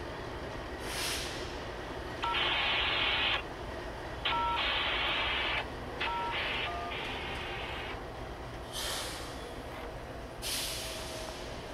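Radio transmissions: four short bursts of static-like noise, three of them opening with a brief two-tone touch-tone beep. Underneath is the low rumble of a freight train's locomotives, with a few short high hisses.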